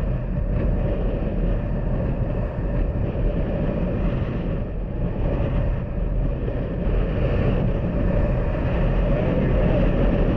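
Honda Super Cub engine running steadily while riding, with wind rushing over the microphone.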